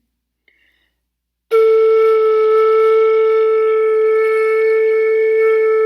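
Flute headjoint played on its own: after a short silence, one long steady tone starts about a second and a half in, with a little breath noise under it.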